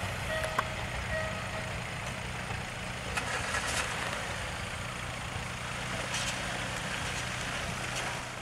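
Diesel multiple unit's engines running with a steady low hum as the train rolls slowly into the station. A repeated electronic beep sounds in the first second or so, with a few faint squeals and hisses from the train later on.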